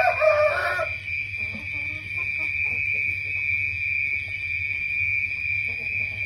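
Steady, high-pitched drone of night insects, typical of crickets, with a brief wavering pitched sound in the first second.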